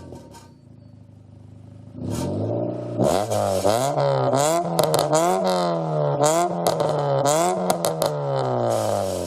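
Honda Civic's D15B2 1.5-litre four-cylinder engine idling quietly, then revved with a quick series of throttle blips from about three seconds in, the revs rising and falling several times before sinking back toward idle near the end.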